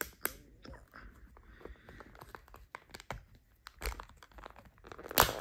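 Foil wrapper crinkling and tearing as fingers peel it open, with many small irregular clicks and rustles, loudest near the end.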